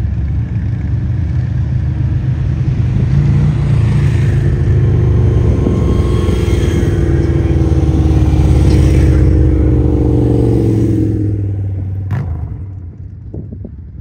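Motorcycle engine running loudly as it passes close by: it builds over the first few seconds, then its pitch drops and it fades away about eleven seconds in. A sharp click follows shortly after.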